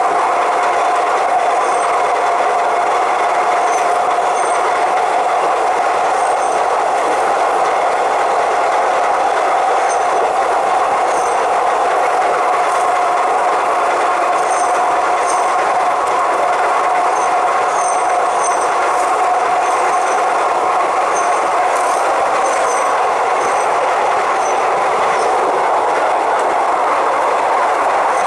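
Bangkok suburban commuter train running at speed on an elevated line: a steady, loud running noise with a held tone, and light clicks now and then.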